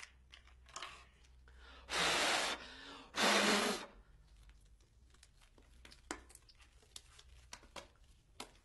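A condom wrapper being torn open: two loud rips about a second apart, about two seconds in, followed by faint crinkling and small clicks of the wrapper being handled.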